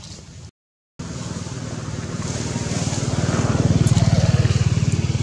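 Motorcycle engine passing close by: a low, evenly pulsing rumble that builds for about three seconds and then eases off, following a brief break of total silence near the start.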